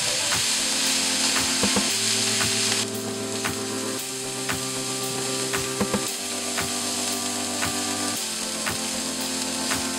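Diced cauliflower sizzling as it fries in olive oil in a nonstick pan, with frequent clicks and scrapes of a silicone spatula against the pan as it is stirred. Soft background music with held notes plays underneath.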